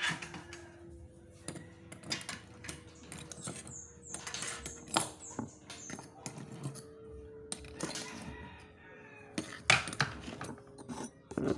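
Aluminium window profiles clinking and knocking as they are handled and fitted, a run of irregular sharp metallic taps with one harder knock late on.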